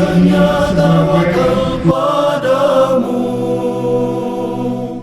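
Background vocal music in a chant-like devotional style, with a voice over it for the first second or two. It then settles into long held notes that cut off abruptly at the end.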